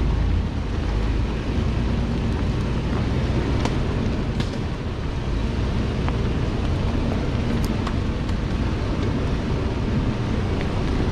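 An off-road vehicle driving along a rutted dirt trail: steady low engine and tyre noise with wind buffeting the microphone. A few short sharp ticks come through, around a third of the way in and again past the middle.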